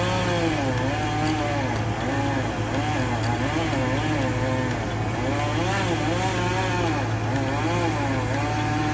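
Chainsaw cutting into a large dead tree trunk, its engine pitch rising and falling as the bar bites and eases, over a steady low engine hum.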